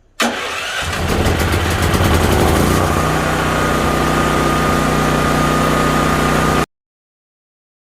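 An engine starting: a fast, rapid clatter for about two and a half seconds as it catches, then running steadily with a thin high whine, cutting off abruptly about a second before the end.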